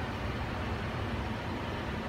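Steady background rumble with a hiss above it, even and unchanging.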